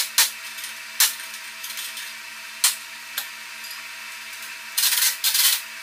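Hand tools clinking and knocking on metal while someone works at a stuck, spinning fender nut: a few sharp clicks spaced out, then a short rattling scrape near the end. A faint steady hum sits underneath.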